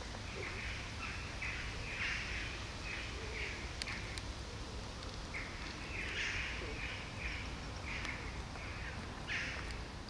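Cat eating wet food from a plastic tub: wet chewing and licking smacks at about two a second, broken by a short pause midway.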